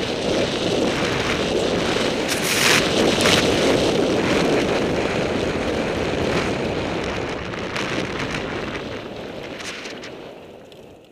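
Wind buffeting a helmet camera's microphone as a mountain bike rides fast over a grass course, with a few brief clatters from the bike about two to three seconds in. The rushing dies away near the end as the bike slows.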